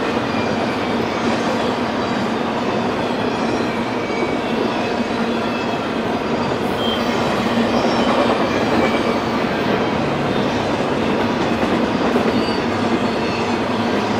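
Intermodal freight cars loaded with trailers and containers rolling past close by: a steady, loud rumble and rattle of steel wheels on rail, with faint short wheel squeals here and there.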